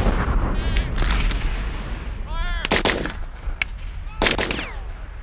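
A black-powder field cannon firing blank with a deep boom at the start, then a string of black-powder musket shots in ragged volleys spread through the next few seconds.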